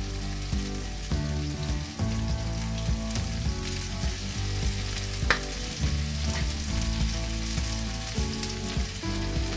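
Salmon, potato and onion sizzling steadily in hot oil in a frying pan, with soft background music underneath.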